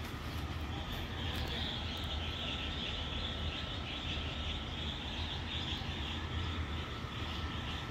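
Outdoor background noise: a steady low rumble under a continuous high chirring that grows stronger about a second and a half in.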